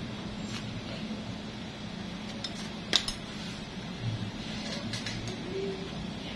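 Metal instruments clinking as a stainless nail nipper is handled: a few light clicks, with one sharp click about three seconds in, over a steady low hum.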